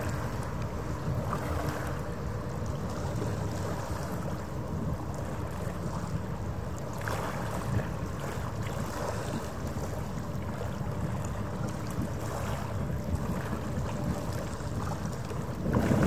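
Steady low drone of a harbour ferry's engines carried across the water, with wind rumbling on the microphone. A louder rumble comes in at the very end.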